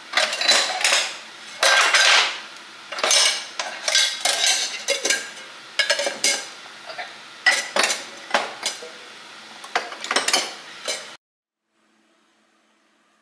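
Glass candle jars and other containers clinking and knocking together as they are moved around and lifted out of a kitchen drawer, in a rapid irregular clatter. It cuts off suddenly near the end, leaving only a faint hum.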